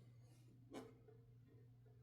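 A single mechanical clack from a 1969 Adler J5 manual typewriter about three-quarters of a second in, with a brief ring after it, over a steady low hum; otherwise near silence.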